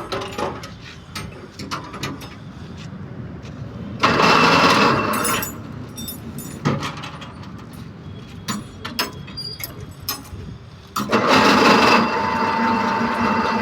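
Mini crane (monkey lift) hoist working: clicks and clanks of its mechanism, a loud rush of noise about four seconds in, then about eleven seconds in the motor starts with a burst and settles into running steadily with a hum.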